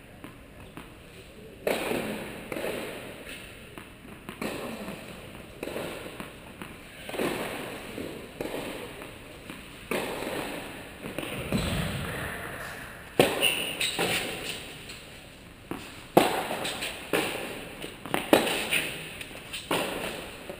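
Tennis ball being hit with rackets and bouncing on a hard court, a string of sharp knocks about a second or so apart that echo in a large indoor hall, with one deeper thump near the middle.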